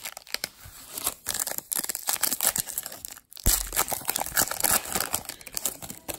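Metallic foil trading-card pack crinkling and tearing as it is ripped open by hand, with a dull thump about halfway through.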